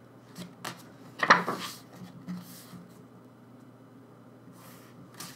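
Photo cards and album inserts being handled: a few light taps and clicks, the loudest about a second in with a short scrape after it, then faint rustling near the end.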